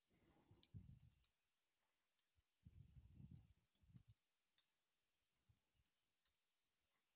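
Near silence with faint, scattered clicks of a computer mouse. Two soft low rumbles, each about a second long, come near the start and about three seconds in.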